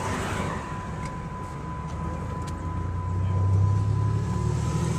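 Low rumble of a car heard from inside its cabin, growing louder about three seconds in, with a thin steady high tone running under it.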